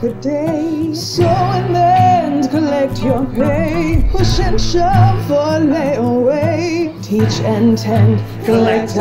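A song with voices singing with vibrato over piano and guitar accompaniment.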